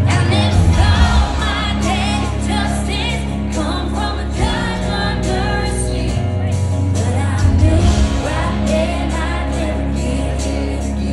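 Live band playing a slow country-rock song with sung vocals over sustained bass notes, at a steady, loud level.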